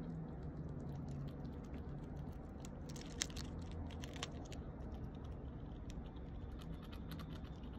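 A young squirrel gnawing and cracking pine nuts pulled from a pine cone, a rapid string of tiny clicks with one sharper crack about three seconds in.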